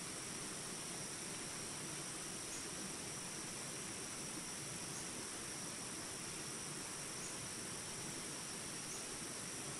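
Small rapids rushing steadily, with a continuous high insect drone over the water and a faint short chirp about every two seconds.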